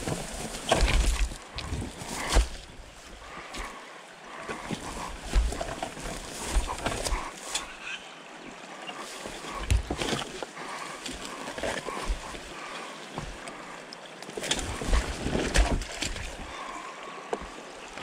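Irregular scuffs, knocks and thumps of boots and a motorcycle being moved over rocks and scrub on a riverbank, over the steady rush of a shallow river.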